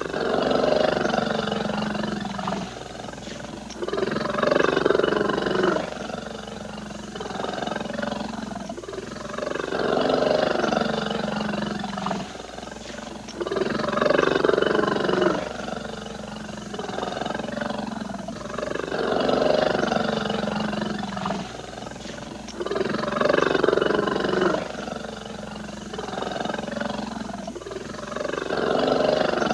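A bear roaring and growling: rough, loud roars every three to six seconds with lower growls between them. The same sequence repeats about every nine and a half seconds, as in a looped recording.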